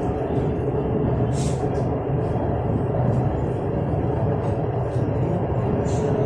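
Orange Line metro train running between stations, heard from inside the carriage: a steady rumble with a faint steady whine, broken by two brief hisses, one about a second in and one near the end.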